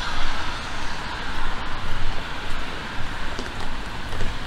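Traffic noise on wet city streets: an even hiss of tyres on wet road over a low rumble.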